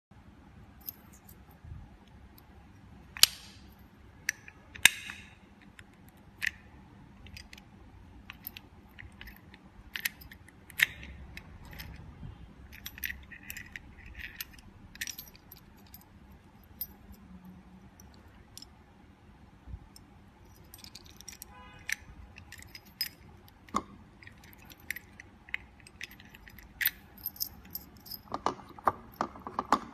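Sharp metallic clicks and clacks of a swing handle panel lock for a cabinet door being worked by hand, scattered irregularly, with a quick run of rattling clicks near the end.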